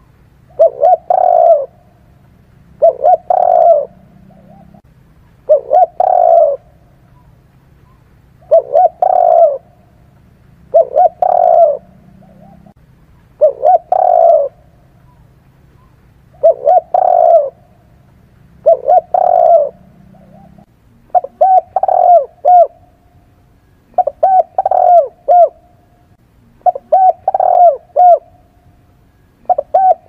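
Spotted dove cooing: a phrase of two or three coo notes about every two and a half seconds. From about two-thirds of the way through, the phrases turn sharper and more clipped, with more notes each.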